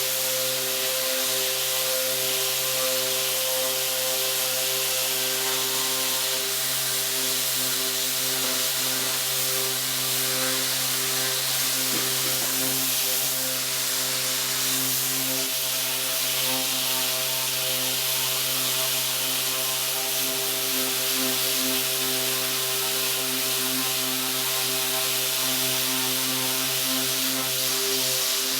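Electric power sander with 60-grit paper running steadily while it sands the painted graphics off a wooden pinball playfield: a constant motor hum under the hiss of the abrasive on the wood.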